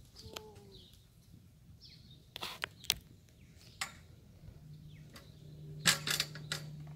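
Light clanks and knocks of an aluminium step stool being handled beside a horse, the loudest cluster about six seconds in, with faint bird chirps behind. A low steady hum comes in about halfway.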